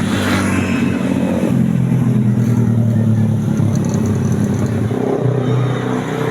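Large tour bus making a loud, steady low drone that shifts in pitch about one and a half seconds in and again near the end.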